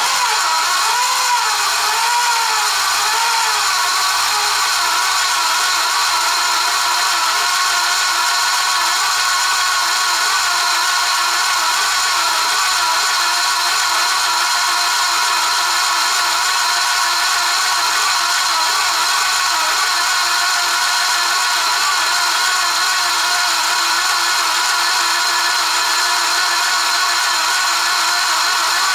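Audi 3B 2.2-litre 20-valve turbocharged five-cylinder engine idling just after a start, its note wavering for the first few seconds and then settling steady, with a harsh mechanical whine over it. This is the nasty noise that appeared after the timing belt was refitted.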